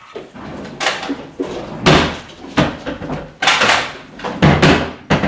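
Kitchen clatter: a run of about six loud knocks and bangs as things are handled on a counter and cupboards are opened and shut.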